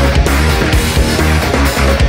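Loud heavy rock music with a steady, driving beat.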